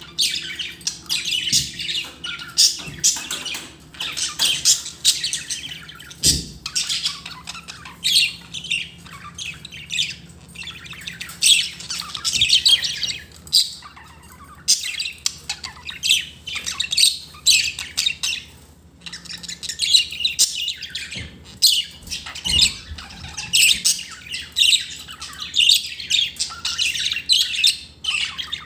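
Budgerigars chattering and squawking: a dense run of quick, high-pitched warbles and chirps with a few brief lulls.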